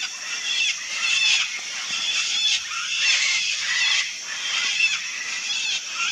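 Sulphur-crested cockatoos giving rough, harsh shrieks, several birds calling repeatedly and overlapping about once or twice a second.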